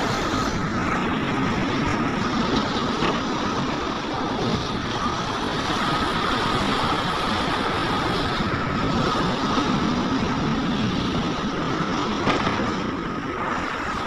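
Heavy earthmoving machinery's diesel engine running steadily, with a steady high whine over it.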